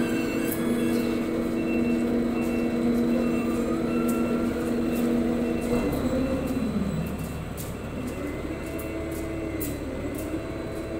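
Ship's cargo crane running with a steady mechanical whine. About six seconds in, the whine slides down in pitch as the hook is lifted free of the rebar bundles, then climbs again near the end. A short high warning beep repeats about once a second.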